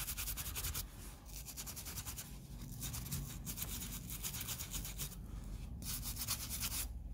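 A small hand brush scrubbing rust off the steel grip frame of a Luger P08 pistol in rapid short strokes.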